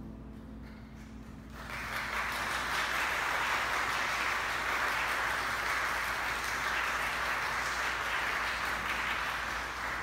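The final note of a piece for tenor, piano and cello dies away, then audience applause breaks out about a second and a half in and carries on steadily.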